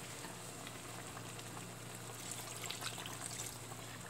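Water poured from a container into a wok of simmering stew, running into the coconut-milk sauce with a soft, steady splashing and bubbling.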